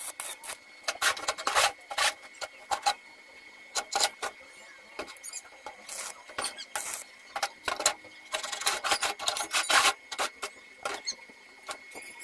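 Stick (arc) welding steel plate: the arc crackles and sizzles in irregular bursts, with short quieter gaps between runs.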